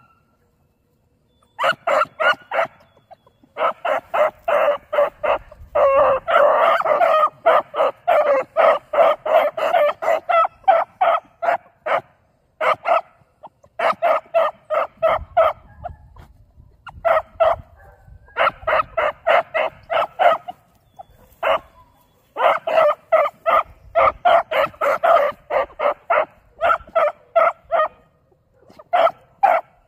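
Beagle pups barking in quick runs of short, high yips, several a second, broken by brief pauses: young hounds giving mouth on a rabbit's scent trail.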